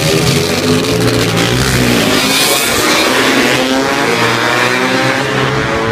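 A pack of classic racing motorcycles passing at speed, several engines revving at once, their pitches rising and falling over one another.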